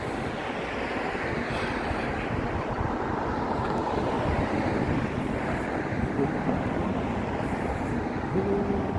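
Steady rushing street noise of road traffic, swelling a little in the middle as a vehicle passes, mixed with wind buffeting the microphone.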